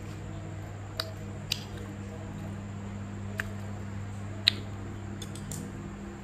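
Eating sounds: soft chewing and a few light clicks of wooden chopsticks against ceramic dishes and a rice bowl, over a steady low hum.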